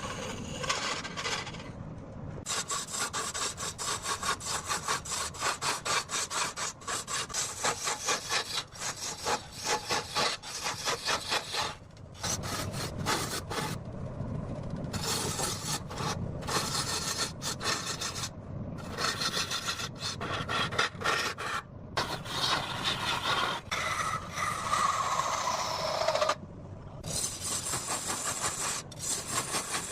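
Cutting tool scraping into a rosewood log spinning on a wood lathe: a rapid, rhythmic rasping scrape, broken by a few brief pauses as the cut is lifted.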